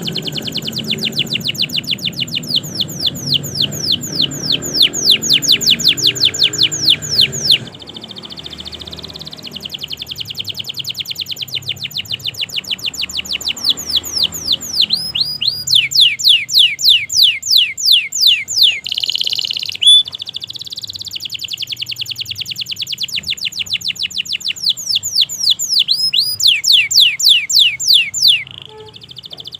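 Domestic canary singing a loud, continuous song of long rolls, each a fast run of the same short sweeping note repeated several times a second, with brief breaks between the rolls.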